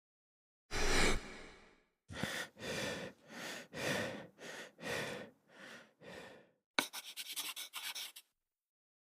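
A person's sharp gasp, then quick, heavy breaths, about two a second, performed as a sound effect. It ends with a brief run of rapid crackles.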